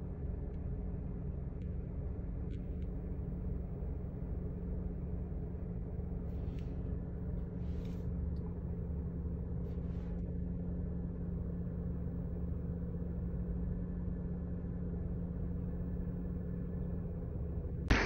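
Car engine idling, heard from inside the stopped car's cabin as a steady low hum.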